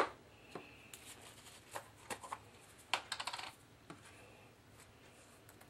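Handling noise while a seasoning powder is measured out: a sharp click, then scattered light clicks and taps of a small plastic bottle and a measuring spoon, with a short rattling scrape about three seconds in.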